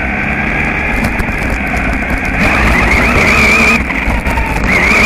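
Radio-controlled buggy running over rough ground: steady rumble and rattle, with a high wavering motor whine from about halfway through and again near the end.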